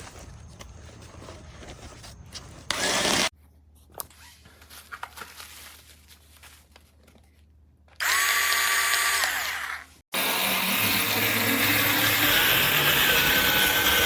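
Cordless electric scissors (a small battery rotary cutter) running in bursts: a short buzz about three seconds in, a two-second whine that winds down, then a longer steady run through the rest.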